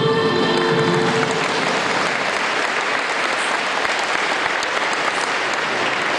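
Audience applauding, with the dance music's last held notes fading out about a second in.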